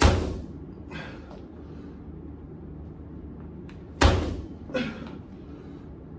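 Two sharp impacts about four seconds apart, each dying away over about half a second and followed less than a second later by a fainter knock, over a steady low hum.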